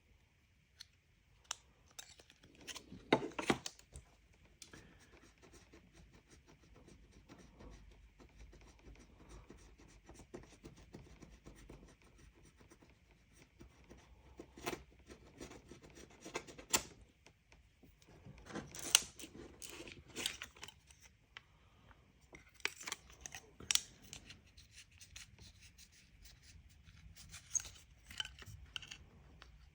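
Irregular close-up scraping and rubbing, with scattered sharper scratches and clicks, as leftover old polarizer material is worked off an LCD panel.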